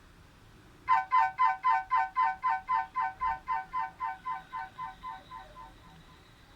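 Nokia 5310 mobile phone ringtone played through the phone's speaker: a pitched electronic note pulsing about four times a second, starting about a second in and fading away over about five seconds.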